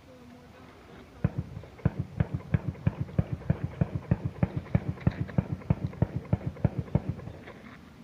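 Automatic gunfire: one long, even burst of about six shots a second that lasts some six seconds, which a listener takes for a .50 caliber machine gun.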